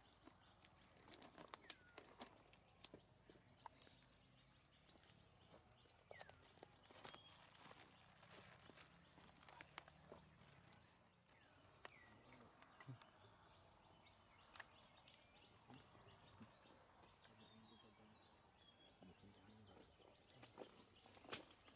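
Near silence, broken by scattered faint clicks and ticks: a cluster about a second in and more between six and ten seconds in.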